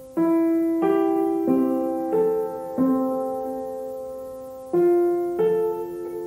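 Background music: slow, gentle piano, single notes and chords struck every half second or so and left to ring and fade, with one longer held chord in the middle.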